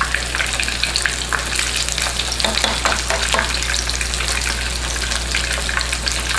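Breaded chicken cutlet shallow-frying in hot oil in a skillet: steady sizzling with many small crackling pops.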